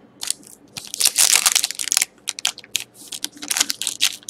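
Crinkling and rustling of a foil trading-card pack wrapper as it is handled and the cards are slid out. It comes as a long dense crinkle about a second in, then a few short rustles and another burst of crinkling near the end.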